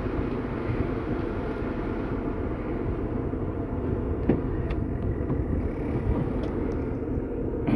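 Steady engine and road noise inside a moving vehicle's cabin, with a few faint clicks about four to six seconds in.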